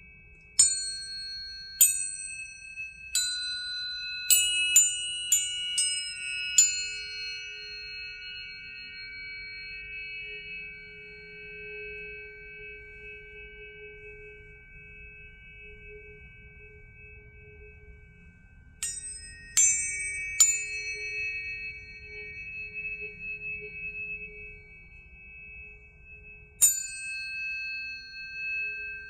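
Tuning forks struck repeatedly, each strike a sharp ping followed by long, clear ringing tones that overlap and slowly fade. About eight strikes come in quick succession in the first seven seconds, three more a little over halfway through, and one near the end.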